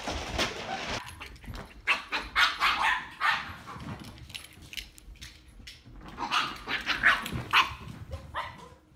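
A dog barking in two bouts of short, sharp barks, one about two to three seconds in and another about six to seven and a half seconds in.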